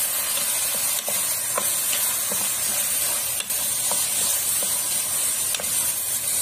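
Beef cubes and onions sizzling in hot fat in a metal pot while being stirred with a wooden spoon: a steady hiss with small scattered pops and spoon scrapes.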